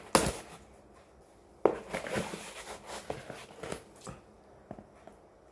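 Cardboard box packaging being handled and pulled apart. A sharp knock comes just after the start and another about a second and a half in, followed by a couple of seconds of rustling and scraping, with a few light clicks near the end.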